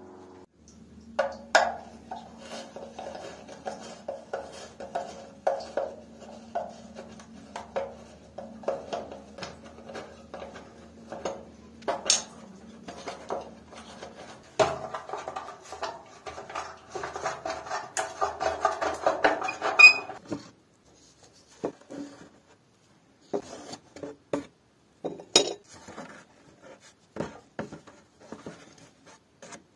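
Screwdriver clicks, scraping and hollow plastic knocks as a wall-mounted plastic mirror cabinet is unscrewed and handled. The sounds are busiest in the middle, and a low steady hum runs beneath them and stops about halfway.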